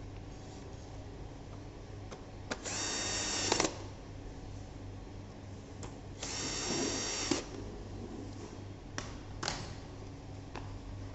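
Small electric screwdriver whirring in two short runs of about a second each, with a few light clicks between them.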